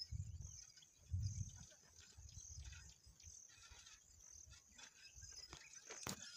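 Insects trilling in a steady high-pitched pulsing chorus across a rural field, over low rumbling bursts, the loudest about a second in, and a single sharp click near the end.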